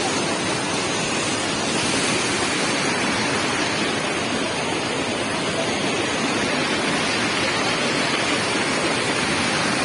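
Hill stream in flood rushing over boulders: a steady, loud rush of turbulent water.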